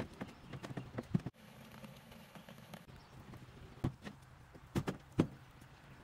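Scattered clunks and knocks of equipment being handled in the back of a van, a few sharper ones about a second in and again in the second half.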